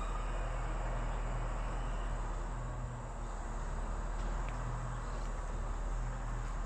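Steady background hum and hiss, with a faint tick about four and a half seconds in.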